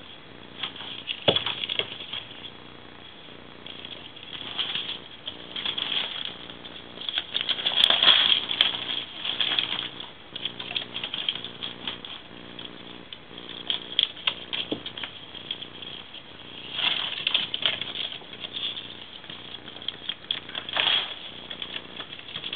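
Flexible foil duct tube crinkling and rattling in irregular bursts as two ferrets scramble through and around it, with their feet pattering on a wooden floor. The busiest burst comes about eight seconds in.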